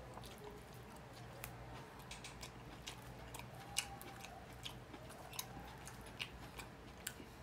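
Faint chewing of shrimp and fried tilapia, close to the microphone, with scattered sharp mouth clicks and crackles.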